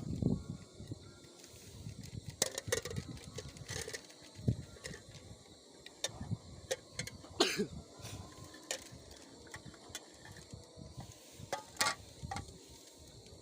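Scattered clicks, knocks and rustles from camp cooking gear being handled, a few sharp knocks standing out among quieter handling noise.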